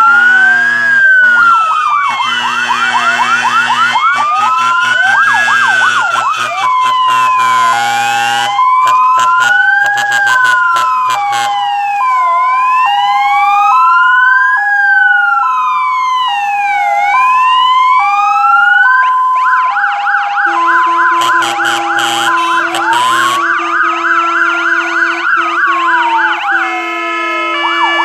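Several fire engine sirens sounding at once: slow rising-and-falling wails, a two-tone high-low siren alternating about twice a second, and fast yelping sirens that come in near the start and again in the second half.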